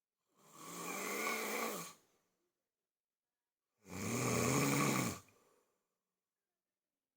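A person snoring: two snores about two seconds apart, the second deeper and louder.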